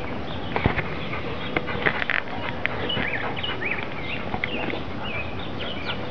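A puppy digging in loose soil with its front paws, with gritty scratching and a few sharp scrapes in the first two seconds. Small birds chirp in the background.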